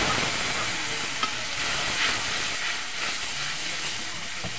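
Liquid sizzling and bubbling in a hot metal kadhai just after being poured onto frying onions, fading a little as it settles. A perforated metal ladle stirs it, with a couple of light clicks against the pan.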